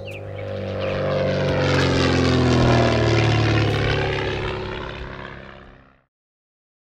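Piston-engined propeller aeroplane flying past: the engine swells, peaks about three seconds in, then fades with its pitch dropping as it passes, and cuts off suddenly about six seconds in.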